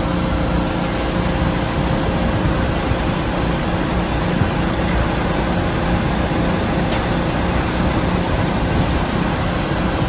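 Large John Deere four-wheel-drive diesel tractor engines running steadily at low revs, a deep even hum.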